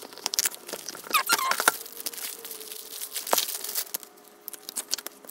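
Tablet being worked out of a tight protective case and the cases handled on a tabletop: a busy run of clicks, scrapes and rubbing, with a couple of short squeaks just over a second in.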